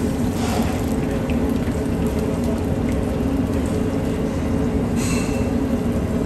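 Steady low mechanical rumble and hum with a hiss over it, the running noise of a food-court stall's kitchen; a brief louder hiss about five seconds in.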